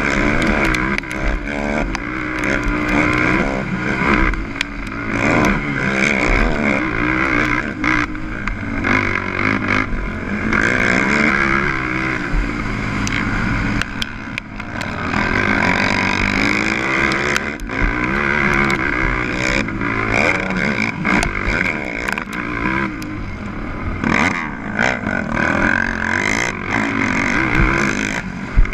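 Onboard sound of a 450cc racing quad's single-cylinder four-stroke engine revving up and down again and again as it is ridden hard around a motocross track, with wind rushing over the camera and scattered knocks from the bumps.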